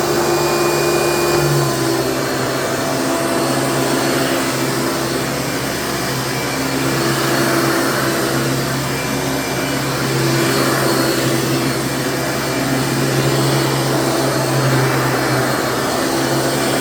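Hoover Dimension 7.3-amp upright vacuum cleaner running steadily just after being switched on: a steady motor hum with a hiss of rushing air. The owner says the motor has some bearing noise.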